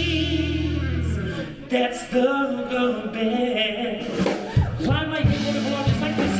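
Band music with a singer, the held notes wavering with vibrato; the steady low bass drops out about a second in and the singing carries on over lighter backing.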